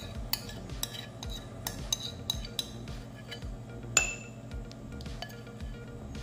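Metal spoon scraping and clinking against a ceramic bowl while scooping out blended strawberry puree: a string of light clinks, with a louder ringing clink about four seconds in.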